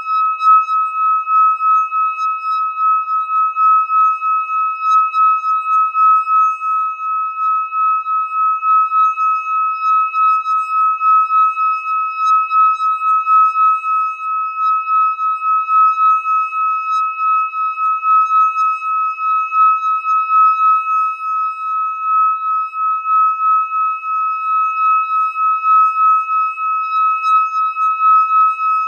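Metal singing bowl held on the palm and rubbed around its rim with a stick, singing one sustained high tone with a fainter overtone above it. The tone wobbles in loudness about three times a second as the stick circles the rim.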